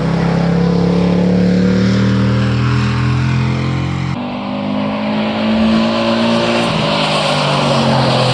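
Dubbed-in race car sound effect: several racing engines running hard at once, their pitches gliding up and down as cars pass. About four seconds in the sound changes abruptly at an edit splice.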